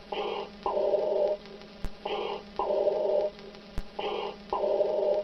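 Imitation of Darth Vader's respirator breathing: a short hissing in-breath followed by a longer out-breath, repeating about every two seconds, with a faint click each cycle and a steady low hum underneath.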